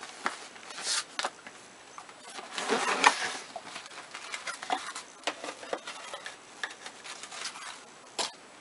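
A cardboard gift box being opened by hand, with its tissue-paper wrapping handled: scattered clicks and taps and short bursts of paper rustling.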